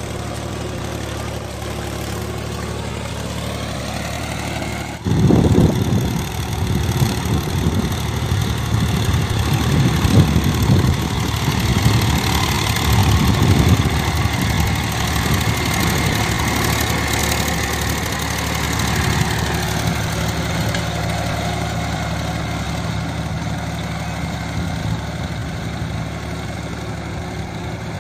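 For about the first five seconds, water gushes from a pipe over a steady engine hum. Then a Mahindra DI 275 tractor's diesel engine runs under load, pulling a cultivator through a flooded, muddy field, louder and swelling and easing as it works.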